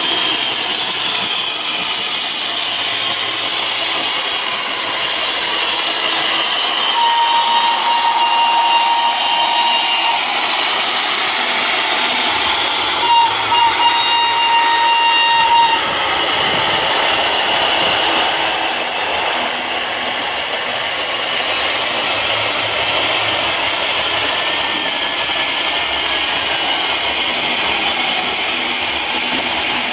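Steam locomotive hissing steadily as it vents steam, with two thin high-pitched tones of a few seconds each, about a quarter of the way and halfway through.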